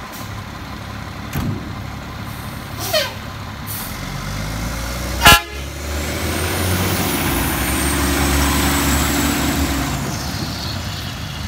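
Mack LR rear-loader garbage truck pulling away. A brief falling squeal comes near three seconds in, and a short horn toot about five seconds in. Then the diesel engine runs up louder as the truck passes, with a high whine that rises and falls.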